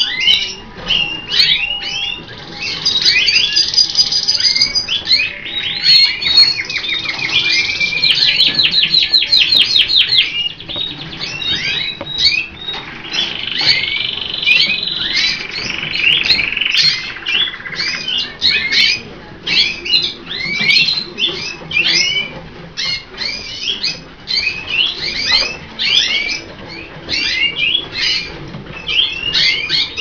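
Colour canaries singing and chirping: a dense run of quick chirps with fast rolling trills between about two and ten seconds in, and a longer held note a little past the middle.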